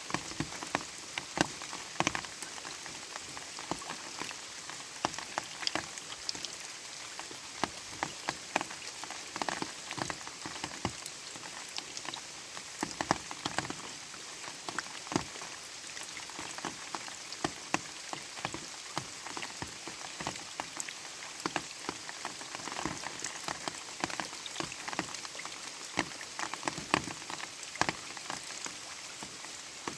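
Light rain falling steadily, with a constant hiss and many separate drops pattering and ticking at irregular moments.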